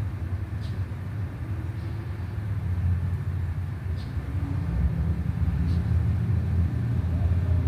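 Steady low outdoor rumble, like traffic or wind, with faint short bird chirps a few times over it.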